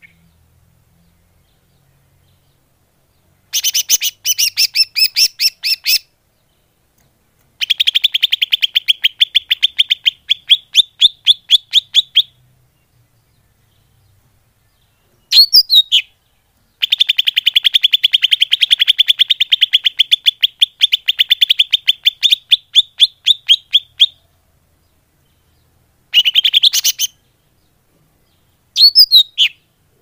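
Cucak ijo (green leafbird) lure call: bouts of rapid, evenly repeated high chirps, about eight a second, some lasting several seconds, separated by short pauses. Two brief single sweeping calls fall between the bouts. It is a call played to attract wild leafbirds.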